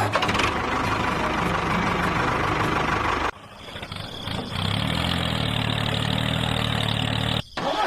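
Engine running at idle in two stretches, broken by an abrupt cut about three seconds in, and cut off again just before the end.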